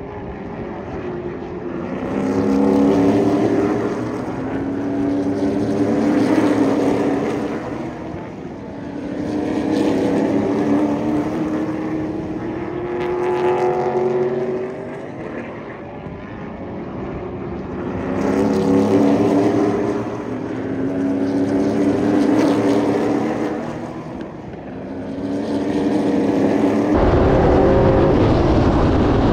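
SPS Pro Late Model stock car engines at racing speed, swelling and fading every few seconds as the cars go by, the pitch rising and falling. Near the end the sound becomes a steady, loud engine and wind noise heard from on board the car.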